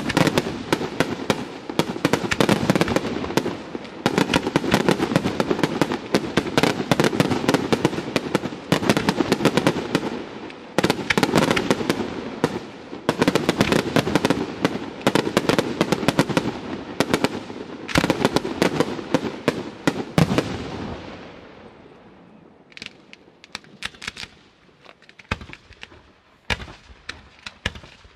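Aerial fireworks display: a dense, rapid run of shell bursts and crackling for about twenty seconds, then thinning to a few separate bangs near the end.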